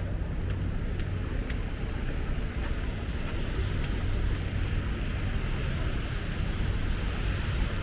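Steady city street noise: a low rumble of traffic and a steady hiss, with faint ticks of the walker's footsteps in snow coming about every half second near the start.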